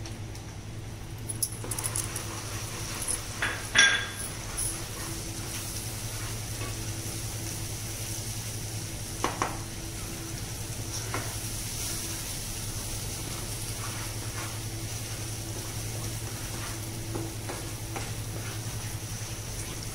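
Puréed onion-tomato gravy sizzling in butter in a non-stick pan over a high gas flame while a ladle stirs and scrapes it. A few sharp knocks of the ladle against the pan, the loudest about four seconds in and a couple more later, over a steady low hum.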